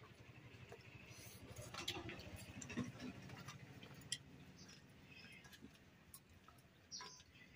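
Faint, scattered light clicks and ticks of fingers and steel bowls as rice is mixed and eaten by hand from steel plates.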